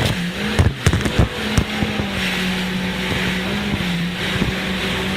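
Jet ski engine running at a steady speed, its pitch dipping briefly about four seconds in, over a steady hiss, with a few knocks in the first second and a half.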